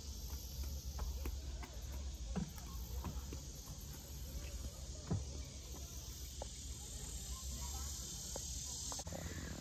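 Steady high-pitched chorus of insects buzzing outdoors, with a low rumble underneath and faint scattered taps of footsteps on the bridge deck.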